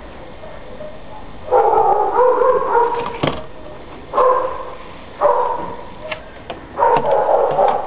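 A dog barking in several bouts of about half a second to a second and a half each. A single sharp knock comes a little after three seconds in.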